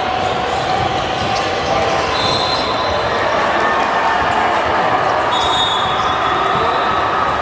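Basketball game sound in a gymnasium: a ball bouncing on the court floor amid a steady murmur of voices, with two short high squeaks.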